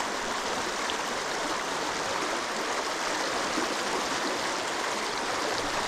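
Mountain stream rushing over boulders and riffles: a steady, even rush of water.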